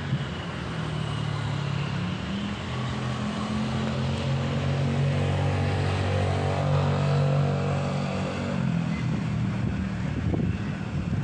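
Diesel engine of a train working under power as it pulls away from the platform: a low, steady drone that steps up in pitch about two seconds in and dies away near the end, over the noise of the moving train.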